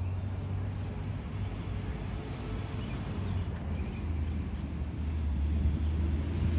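Steady low outdoor rumble, growing louder near the end, with faint short high chirps scattered through it.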